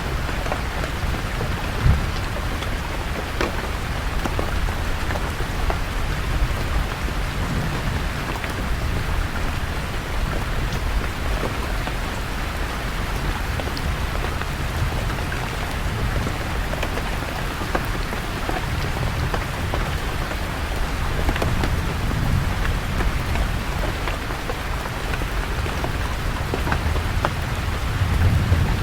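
Steady rain falling on leaves, with scattered distinct drop ticks, under a low rumble of thunder that swells near the end.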